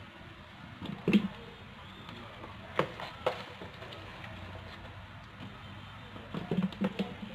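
Hands scooping wet olives mixed with grated carrot, celery and pepper from a plastic bowl and dropping them into a plastic jar: soft handling noise with a few sharp knocks, the loudest about a second in and a cluster near the end.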